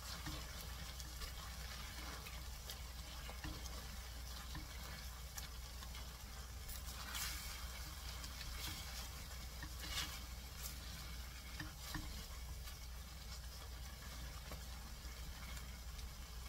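Soybean sprouts and onion in a red chilli sauce sizzling in a stainless steel pan while a silicone spatula stirs and scrapes them, with a few sharper scrapes against the pan. This is the last stage of the stir-fry: the sprouts are nearly cooked and the heat has been raised to medium.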